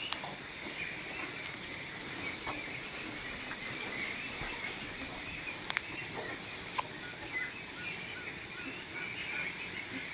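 Faint, steady background calling of many Pekin ducks in a shed, with a few light clicks and a sharp double click about halfway through.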